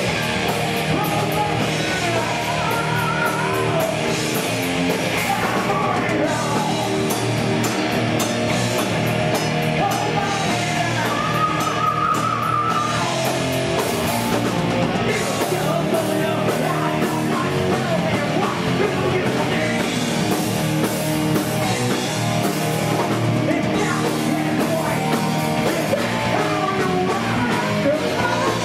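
Live heavy metal band playing loud and continuously: distorted electric guitars over a driving drum kit.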